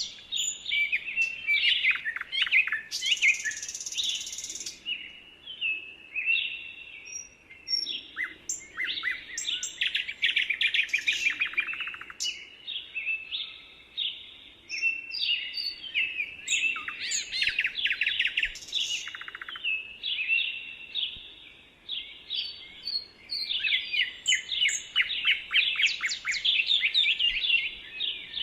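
Woodland songbirds singing in a chorus: overlapping quick chirps, rapid trills and short whistled notes that come in waves with brief lulls.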